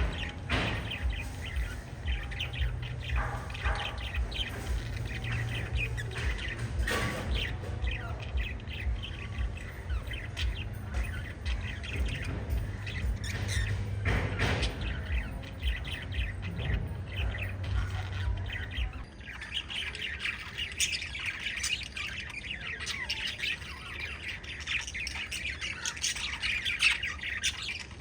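A small flock of lovebirds chirping continuously in rapid, overlapping calls, which grow denser in the last third. A low pulsing hum runs underneath and stops about two-thirds of the way through.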